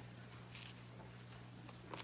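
Quiet pause filled by a low, steady electrical hum, with a brief soft rustle about a quarter of the way in and a light tap near the end.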